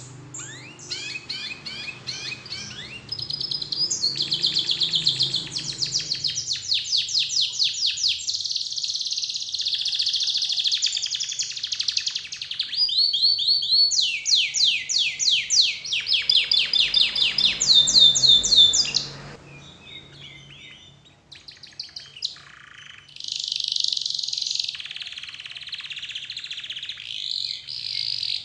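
Domestic canary singing a long, loud song of fast repeated high trills and rolls, one phrase after another. It breaks off about two-thirds of the way through into a few soft notes, then starts trilling again.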